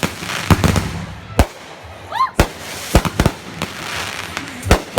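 Fireworks and firecrackers going off: about seven sharp, loud bangs at irregular intervals over a continuous crackle.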